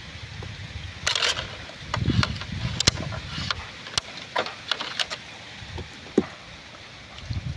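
Water sloshing and splashing as small cups of water are tipped out into a tub, with sharp clicks and knocks from thin plastic cups being handled, over a low wind rumble on the microphone.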